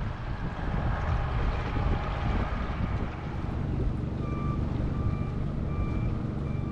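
Honda outboard motor running at low speed, a steady drone with water noise. About four seconds in, a series of electronic beeps starts, roughly one and a half a second.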